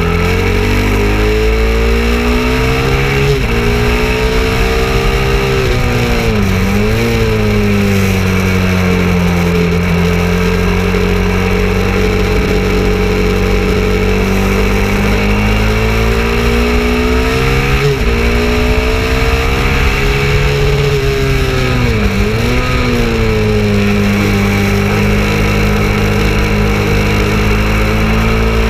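KTM 690 Duke's single-cylinder engine running hard on track, its pitch rising and dipping several times with throttle and gear changes through the corners, over steady wind noise.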